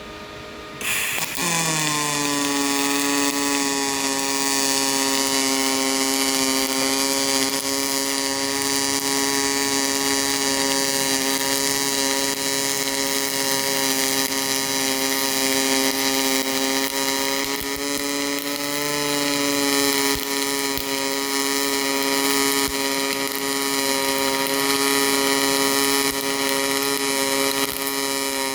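HTP Pro Pulse pulse MIG welder arc running a bead, with its arc-length trim turned down from 6 to 5: a steady pulsing buzz with a clear hum-like pitch that starts about a second in, dropping in pitch as the arc settles.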